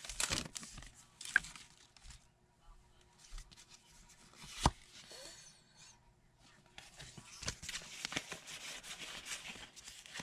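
Foil Pokémon booster pack crinkling as it is torn open and handled, starting about seven seconds in. Before it come two sharp clicks.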